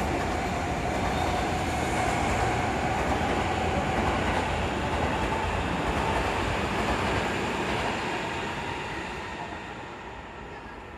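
Seibu 20000 series electric commuter train pulling away: wheels running on the rails with a slowly rising motor whine. The sound fades over the last few seconds as the train moves off.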